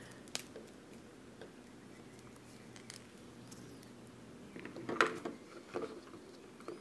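Faint clicks and taps of plastic action figures being handled and set in place on a display stand, with a small cluster of louder taps about five seconds in.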